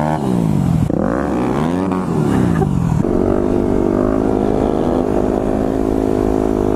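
Yamaha WR250X motorcycle engine under way, its pitch rising and falling through the first few seconds as the rider works the throttle and gears, then holding steady at cruising speed.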